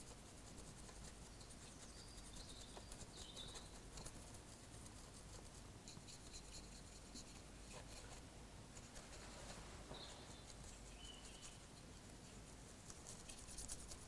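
Faint scratching of a small paintbrush blending oil paint onto a model locomotive's underframe, in soft irregular strokes.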